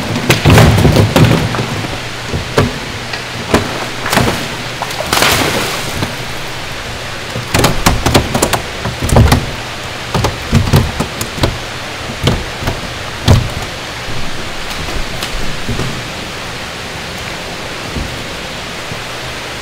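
Steady rush of water over a low hum, with irregular knocks and thumps, most of them in the first fourteen seconds.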